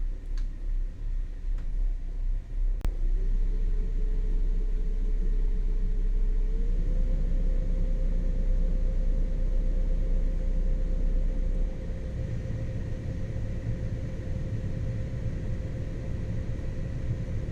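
Motor yacht's inboard engine running with a steady low rumble and a whine that steps up in pitch about six and a half seconds in; the rumble changes and eases slightly about twelve seconds in.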